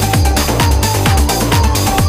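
Background electronic music with a steady kick drum about two beats a second; a thin rising synth tone enters in the second half.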